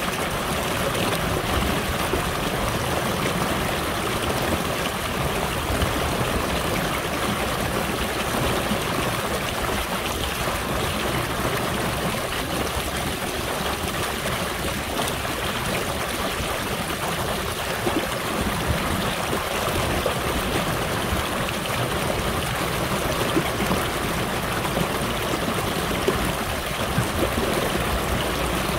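Shallow stream running fast over a stony bed: a steady, unbroken babble of water.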